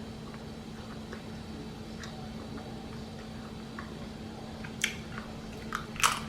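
Someone eating: faint chewing and mouth clicks over a steady low hum, with a few sharper smacks about five and six seconds in.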